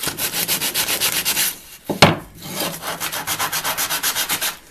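Sandpaper rubbed by hand over an old wooden hand-saw handle, in quick rasping back-and-forth strokes, about six a second. The strokes pause briefly about two seconds in, with a single sharp knock, the loudest sound.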